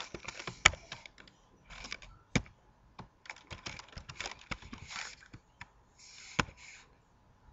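Typing on a computer keyboard: irregular runs of key clicks with short pauses between them and a few heavier single keystrokes, stopping about seven seconds in.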